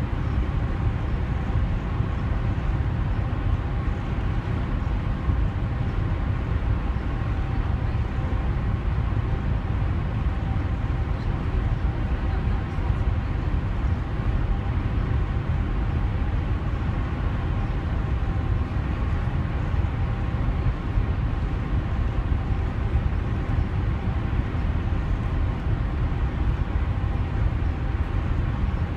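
DFDS Seaways ferry under way, heard from its deck: a steady low rumble of engines and machinery with a faint steady hum above it.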